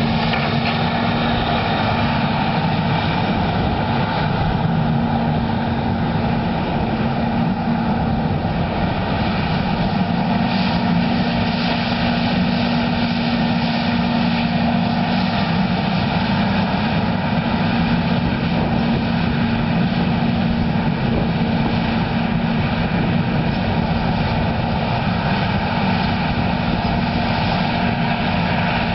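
Versatile 550 tractor's engine running steadily while pulling a Cat 80 scraper, a loud even drone with a steady low hum.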